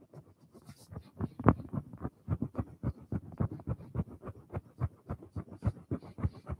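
The flat back of a chisel rubbed in quick short back-and-forth strokes on wet 2500-grit abrasive film stuck to a flat plate, with a soft rasp on each stroke, several a second. The strokes grow firmer after about a second. This is the final polishing stage of flattening the chisel's back, working the shine up to the cutting edge.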